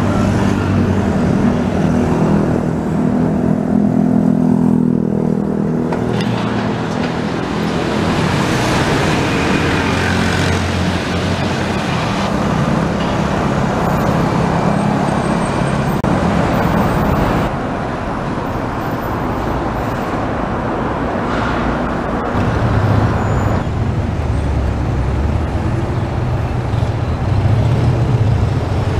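Busy city street traffic: cars, motorcycles and buses running past. The steady hum of a large engine idling close by is heard at the start and again near the end.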